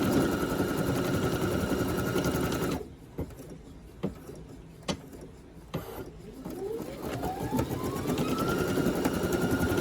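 Brother SE1900 embroidery machine stitching steadily, stopping about three seconds in. A few sharp clicks follow in the pause, then the motor starts again with a whine rising in pitch until it is back to a steady stitching run.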